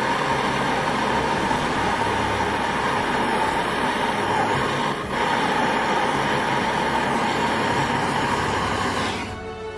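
Jeweller's gas torch flame hissing steadily while heating a gold pendant. The noise dips for a moment about halfway through and cuts off shortly before the end.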